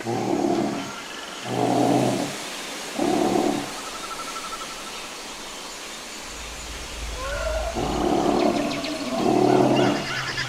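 Dinosaur roar sound effects: three short roars about a second apart, then a deep rumble and two longer roars near the end, the second the loudest, with high chirping starting under the last one.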